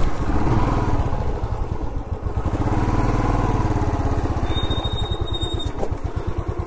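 Motorcycle engine idling with a steady, even pulse, and a brief thin high-pitched tone about halfway through.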